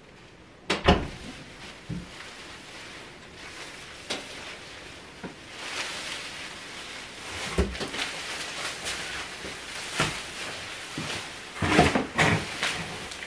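A door clunking about a second in, then plastic shopping bags rustling and crinkling as they are carried in, with several knocks and bumps, the loudest cluster near the end.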